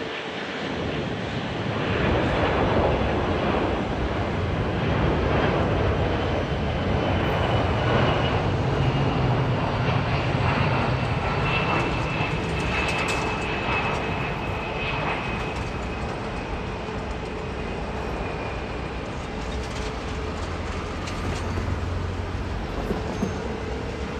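United Boeing 767 jet airliner passing on final approach and touching down, a steady jet engine rumble with a faint high whine that sinks slowly in pitch. The noise is loudest in the first half and eases off as the jet rolls away down the runway.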